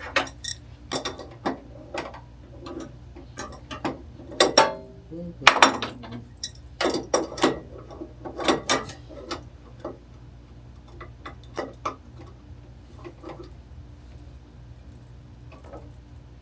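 Metallic clicks, knocks and ratchet-like clatter of a saw blade and its fittings being handled and fastened onto a saw's arbor. The knocks are dense and loud for the first ten seconds or so, then thin out to faint ticks, over a steady low hum.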